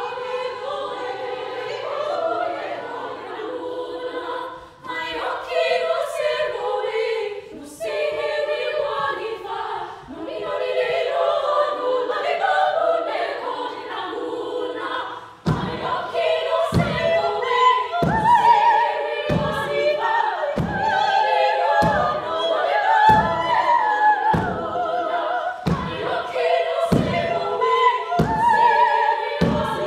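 A choir of women singing a waulking song. About halfway through, a steady beat of low thuds joins in time with the song: a length of woollen cloth being beaten on the floor as it is waulked (fulled).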